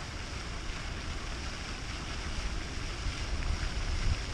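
Wind buffeting the microphone, a steady low rumble over an even hiss.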